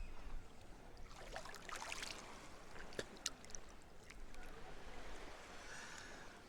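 Sea water sloshing and splashing faintly around people in the water, with a cluster of small splashes and a few sharp clicks near the middle.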